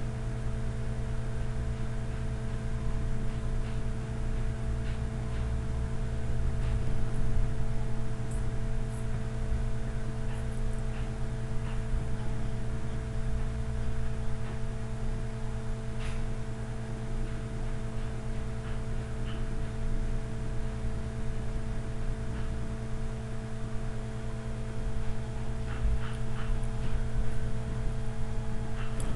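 A steady low electrical hum with several overtones, with a few faint clicks over it.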